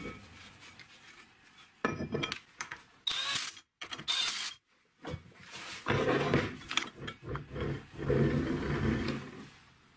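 Metal parts clinking as a car brake disc is set onto a wheel hub bearing, then two short bursts of a power driver running in the disc's bolts. Then the disc spins freely on the hub bearing with a rolling whir that dies away near the end.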